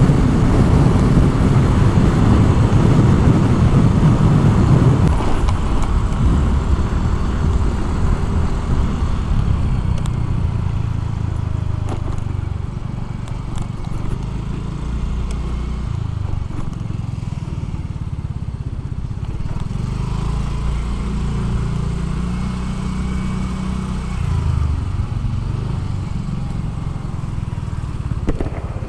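Yamaha Avantiz scooter being ridden, its small single-cylinder engine running under wind noise on the microphone. The wind rumble is heaviest for the first five seconds, then eases as the scooter slows, and the engine note shifts up and down at lower speed.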